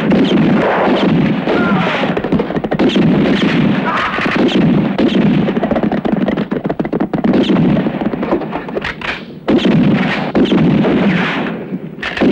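Film sound of a gunfight: rifle and pistol shots fired in quick succession, loud and nearly continuous, with a couple of brief lulls.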